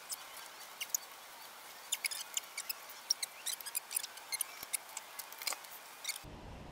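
Scattered, irregular light metallic clicks and taps of hand tools and engine parts as the camshaft sprockets are turned by hand to line up the timing marks.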